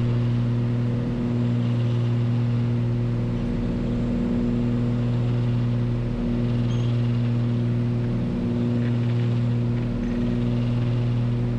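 Cabin drone of a 1977 Cessna 340A's twin turbocharged Continental TSIO-520 engines and propellers in descent on approach, a steady low hum with a slow throb about every two seconds.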